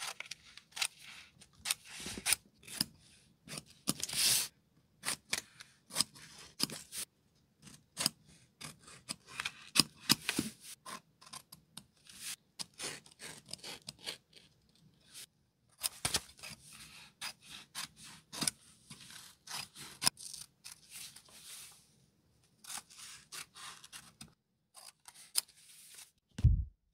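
Large steel shears snipping through brown kraft paper in a long run of short cuts, in clusters with brief pauses, with the paper rustling as it is handled. A single dull thump near the end.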